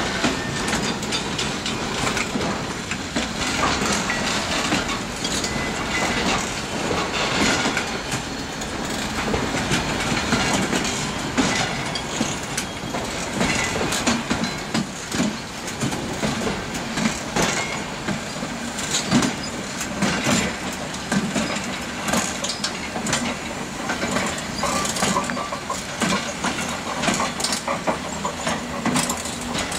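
Very long freight train of container wagons rolling past, its wheels clattering steadily over rail joints with a rapid string of clicks and knocks. The electric locomotive pushing at the rear comes by near the end.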